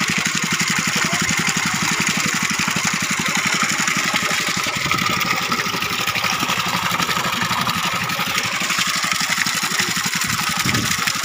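A small engine running steadily with a fast, even beat, under the continuous splash of water jets pouring into a tank of water.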